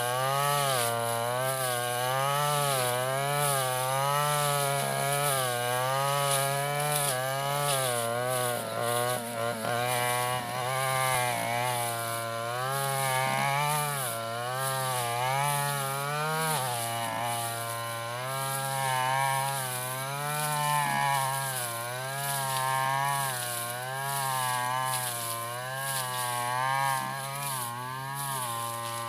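Stihl FR 3001 backpack brushcutter's two-stroke engine running under load while cutting tall grass, its pitch rising and falling about once a second as the load on the cutting head comes and goes.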